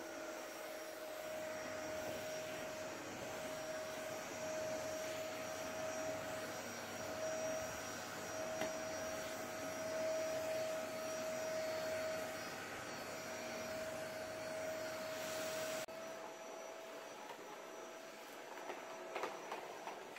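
Vacuum cleaner running steadily, a constant whine over a rushing hiss as its floor nozzle is pushed back and forth over a rug. A little past three-quarters through it turns slightly quieter and duller, and a few light knocks follow near the end.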